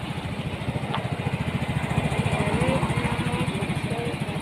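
A vehicle engine running steadily with a fast pulsing beat, swelling a little about two to three seconds in.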